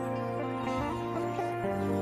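Instrumental background music: held notes over a slowly changing bass, the chord shifting about once a second.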